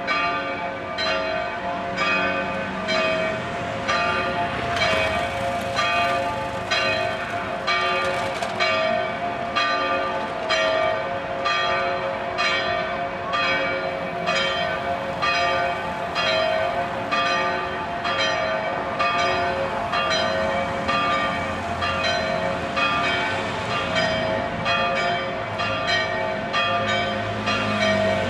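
Church bells ringing in a steady, even run of strikes, a little more than one a second, with the bells' hum carrying on between strikes.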